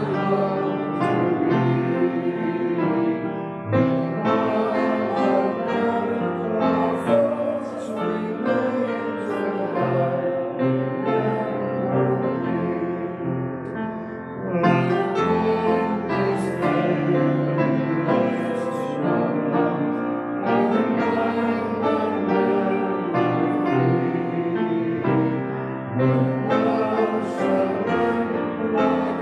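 A hymn played on piano.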